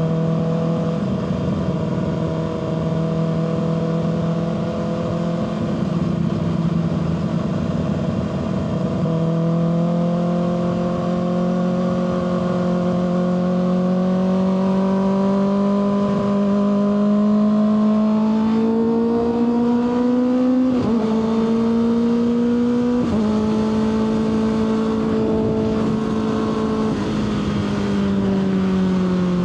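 Kawasaki ZX-6R 636 inline-four engine running under way, its pitch creeping slowly upward, with two short dips in pitch in the last third and a fall in revs near the end. Wind noise runs underneath.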